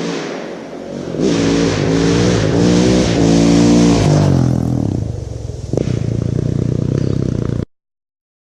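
Motorcycle engine revving hard, its pitch climbing and dropping back several times, then running on more steadily before cutting off abruptly near the end.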